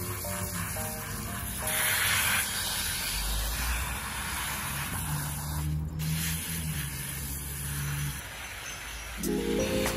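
Water spraying from a pistol-grip garden hose nozzle onto plants and soil in pots, a steady hiss, under background music whose melody comes back louder near the end.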